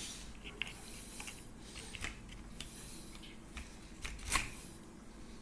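Faint scraping and light clicks of a small aluminium bar being handled and worked to tighten its fit, with one sharper click a little after four seconds in.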